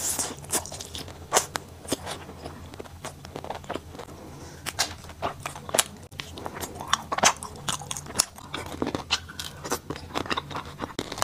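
Close-miked chewing and crunching of a fried chicken and rice cake skewer: irregular small crunches and wet mouth clicks, with a faint steady low hum underneath.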